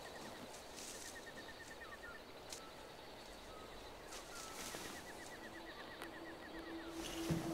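Forest ambience: birds give short chirps, and a rapid ticking trill comes and goes three times over a faint hiss. A low, steady musical note fades in near the end.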